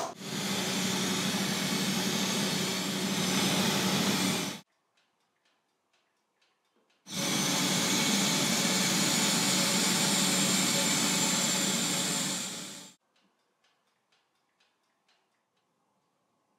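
Powder coating spray gun blowing air and powder at the metal toy parts in two long, steady hissing bursts of about five seconds each, with a low hum under them, each cut off abruptly.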